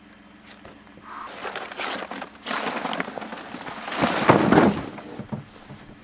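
Rustling and scraping handling noise as a mud motor is hoisted and laid across a snow-covered, grass-brushed layout boat. It is loudest about four seconds in and dies away shortly before the end.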